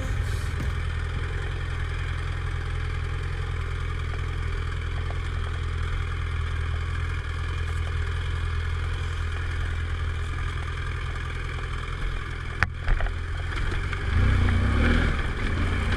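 BMW F800GS motorcycle's parallel-twin engine running steadily as the bike is ridden off-road. There is a sharp click near the end, and the engine gets louder for the last two seconds.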